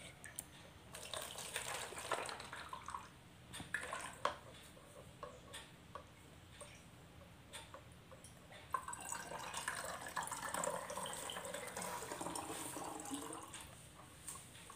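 Water poured from a small plastic cup through a plastic funnel into a plastic bottle, trickling and splashing, with light knocks of plastic on plastic. A short pour comes first, then a longer steady pour from about nine seconds to past thirteen.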